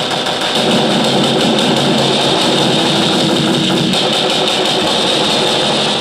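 A dense, many-layered sound-effect mix playing back loud and steady, then cutting off at the end. It runs through a track compressor whose threshold is being pulled down, so it is squeezed by several dB.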